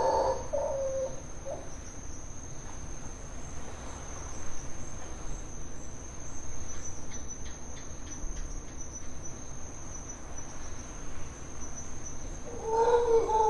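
Steady, high-pitched insect trill, typical of crickets, running on one unchanging pitch. Low, pitched animal calls sound briefly at the start and again near the end.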